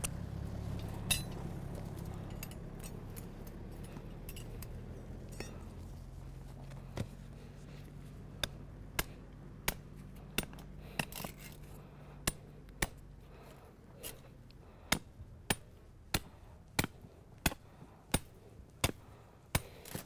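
Sharp metallic taps like a hammer striking metal, a few at first, then at a steady pace of about one and a half a second near the end. Under them, a low engine hum fades away.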